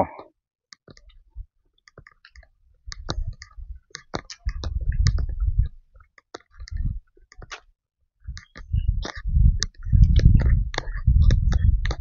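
Footsteps walking on a grassy dirt trail, heard as scattered sharp clicks. Irregular bouts of low rumbling on the microphone come and go, and are strongest in the last few seconds.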